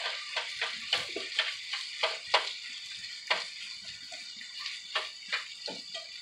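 Lean ground beef, fully browned, sizzling lightly in a skillet as a cooking utensil stirs and scrapes it, with irregular scraping strokes about three a second.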